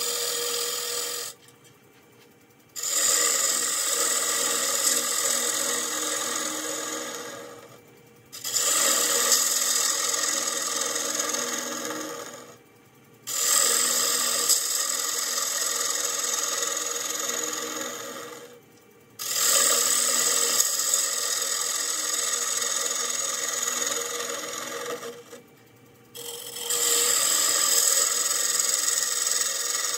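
Turning tool cutting into a spinning walnut and cherry bowl blank on a wood lathe, a loud hissing, scraping shear as shavings come off the wood. The cut runs in passes several seconds long with five short breaks between them, where the tool lifts off the wood.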